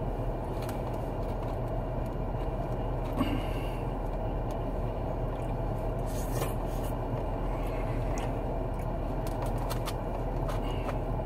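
Steady low hum of a parked car running, heard inside the cabin, with a few faint clicks and rustles from someone eating fried chicken.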